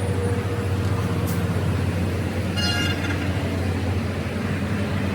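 A vehicle engine running steadily with a low hum, with a brief high-pitched tone, like a horn toot or metal squeal, about two and a half seconds in.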